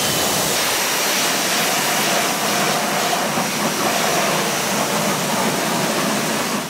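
Pressure washer lance spraying a jet of water onto a car's wheel and tyre, rinsing the soap off: a steady rush of water spray that stops just at the end.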